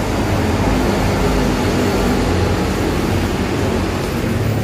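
An engine idling steadily: a low, even drone with a constant hiss over it.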